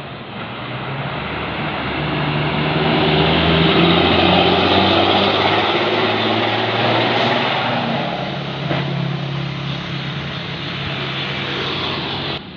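Tour bus diesel engine running close by. It grows louder over the first few seconds, then holds steady, dropping slightly in pitch about eight seconds in, and cuts off suddenly near the end.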